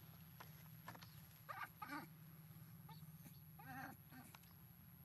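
Faint, wavering squeaks from a young monkey: two short calls about one and a half and two seconds in, and a longer one near four seconds, over a low steady hum.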